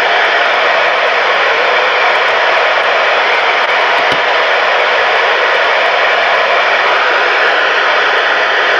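Steady band hiss from a CB radio's speaker, with the squelch open on an empty channel 19 while the operator waits for an answer that does not come.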